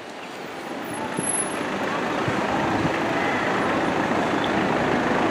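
A heavy road vehicle running in the street, its noise growing louder over the first two seconds and then holding steady.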